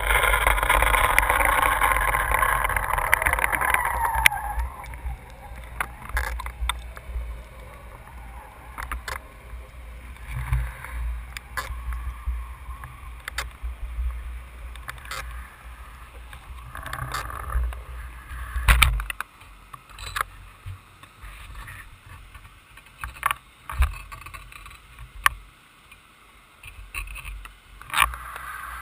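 Underwater audio from a camera lowered with a fish descender rig: a low rumble of moving water with many scattered sharp clicks and knocks. A louder rushing noise fills the first four seconds, and the low rumble drops away a little past halfway.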